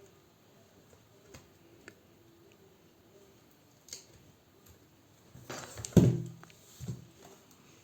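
Small tool clicks and taps on an iPad's glued glass front as the cracked screen is pried off, with a cluster of louder knocks about six seconds in.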